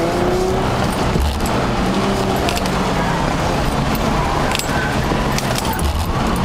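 Car engine working hard as the car is driven quickly through a tight cone course, heard from inside the cabin under steady road noise. Scattered sharp rattles and jangles come from loose items in the car.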